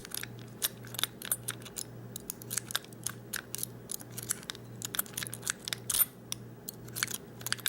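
Half-rake lock pick scraping and clicking against the pins inside a Master Lock Magnum disc padlock, with the rapid irregular metallic clicks of raking under light tension.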